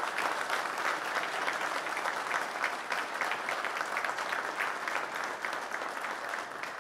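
Audience applauding, a steady patter of many hands clapping that slowly weakens toward the end.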